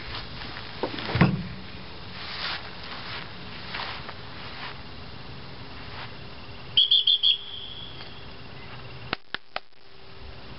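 A dog-training whistle blown in four quick high pips about seven seconds in, the loudest sound here. A few soft thumps come in the first seconds, and three sharp clicks near the end.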